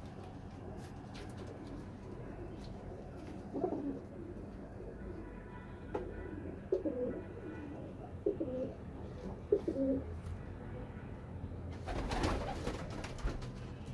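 Domestic high-flying pigeons cooing: a single low coo about four seconds in, then a run of several coos in the middle. A short burst of rustling noise comes near the end.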